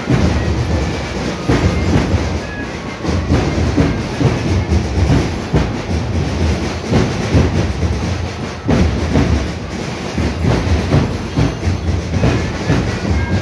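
Lorry diesel engines rumbling close by, with irregular clattering knocks over a steady low drone.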